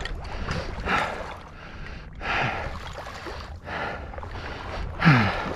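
Shallow marsh water sloshing and splashing with each wading step, in uneven surges about once a second. A short falling voice sound comes near the end.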